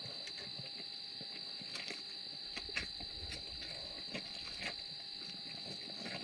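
Steady high-pitched drone of insects, with scattered sharp clicks and cracks, the loudest about three seconds in.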